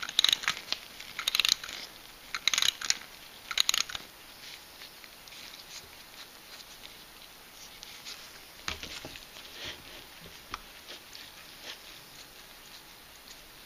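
Antique mechanical alarm clock being wound by hand: four quick bursts of ratchet clicking in the first few seconds, one burst per turn of the key. After that come fainter clicks and a soft knock as the clock is handled.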